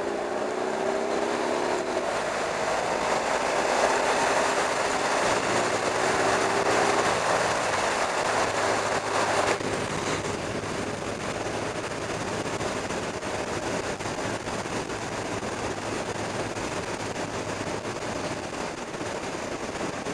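Motorcycle riding at road speed heard from a bike-mounted camera: heavy wind rush over the microphone with the engine's steady hum underneath. The wind noise is strongest in the first half and eases suddenly about ten seconds in.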